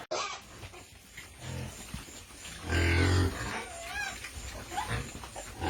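A sow grunting in deep bursts, loudest about three seconds in, while her newborn piglets squeak in short high calls.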